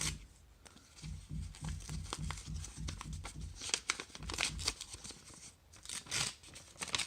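A paper envelope being torn open by hand, with ripping and crinkling of paper in short bursts, the loudest about four seconds in and again near the end.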